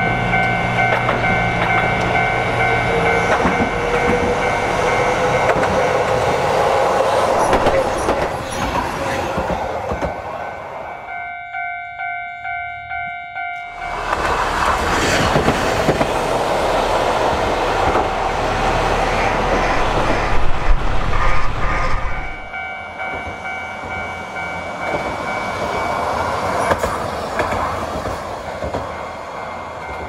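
Level-crossing warning bell ringing steadily in a repeating ding, about twice a second, as a Hankai Tramway Mo 601-type tram approaches with a slowly rising motor whine. The tram then passes close by with loud wheel and rail clatter, and the bell keeps ringing after it has gone.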